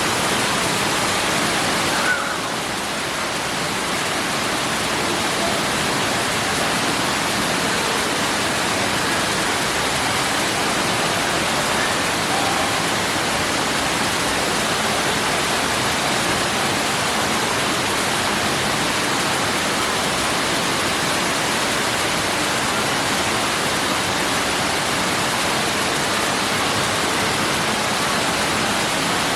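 Indoor artificial rock waterfall: water falling and rushing into a pool in a steady, even wash of noise, with a small click about two seconds in.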